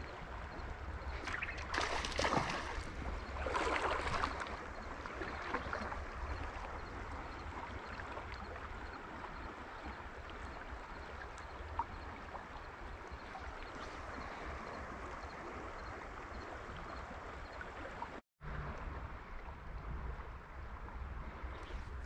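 River current flowing over a shallow bed, a steady rush of water with a low wind rumble on the microphone. Two louder rushes come about two and four seconds in.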